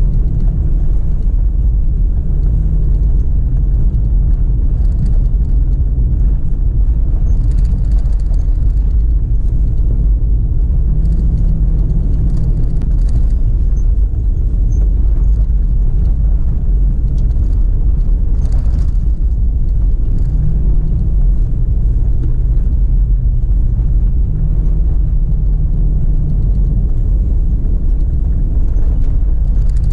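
Toyota FJ Cruiser's 4.0-litre V6 and tyres on a snowy dirt road, heard from inside the cabin as a steady low drone. The engine note rises and falls a little at times, with a couple of faint clicks or rattles along the way.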